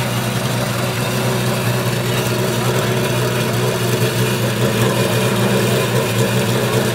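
Radical SR8LM race car's V8 engine, built from two Suzuki Hayabusa motorcycle engines, idling steadily.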